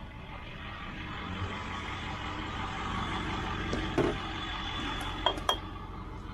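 Steady running noise of a vehicle on the move, with a few sharp clinks from loose hard items knocking together: one about four seconds in and a quick pair about a second later.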